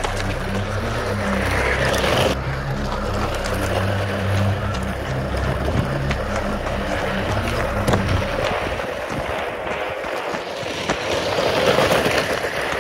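Radio-controlled 8x8 electric model truck driving over loose gravel, its tyres crunching on the stones. Its low drivetrain hum drops away about two-thirds of the way through.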